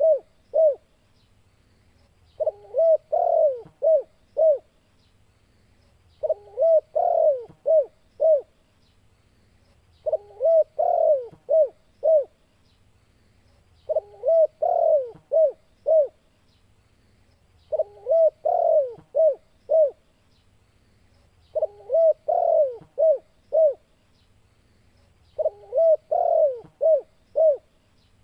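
Spotted dove (tekukur) cooing its 'kuk 2' call: a phrase of a few coos ending in short notes, repeated about every four seconds, seven times over.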